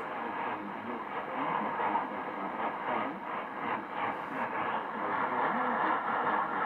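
Shortwave AM broadcast from Radio Vanuatu on 9960 kHz coming through an Icom IC-R75 communications receiver's speaker: a weak, noisy signal with steady static hiss, and the station's programme audio faint and muffled underneath.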